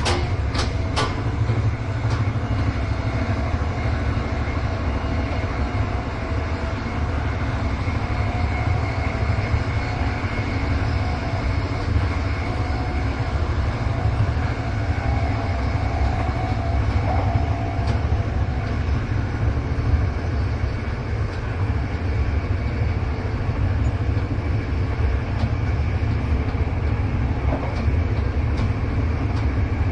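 Train running at speed, heard from inside the carriage: a steady low rumble of wheels on track, with a quick run of clicks from the rail joints in the first second.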